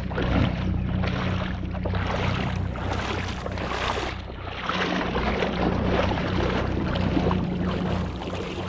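Shallow water splashing and sloshing as a person wades through it with a wheeled cooler trolley, in irregular splashes, over a steady low hum.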